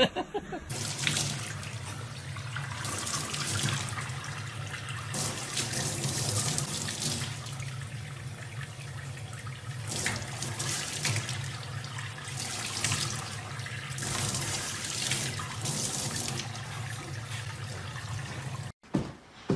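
Tap water running from a faucet into a stainless steel sink, splashing unevenly as a baby chimpanzee bats at the stream with its hands. It starts just under a second in and cuts off abruptly near the end.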